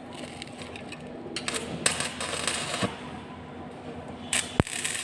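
Electric arc welding crackling in two short bursts, the first about a second and a half long and the second about a second long near the end, each with a sharp click.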